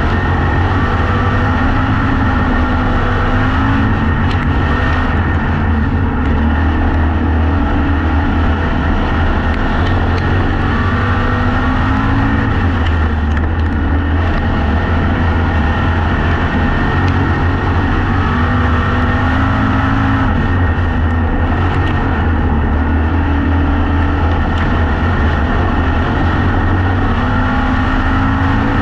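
Factory Stock dirt-track race car's engine running hard under racing load, heard from inside the cockpit, its pitch rising and falling every several seconds as the driver gets on and off the throttle around the oval.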